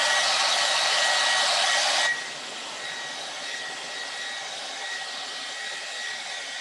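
Hair dryer blowing to dry wet spots in fresh chalk paint, a steady rush of air with a high whine over it. About two seconds in it turns noticeably quieter and carries on steady.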